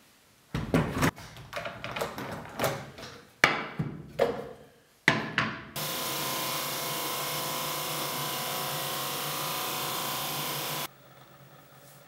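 Wooden boards and clamps knocking and clattering on a work table, a run of sharp knocks over about five seconds. Then a drum sander runs steadily for about five seconds, cutting in and out abruptly.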